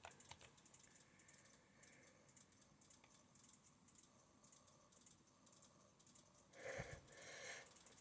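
Near silence with faint computer-keyboard typing clicks. Near the end come two brief soft sounds.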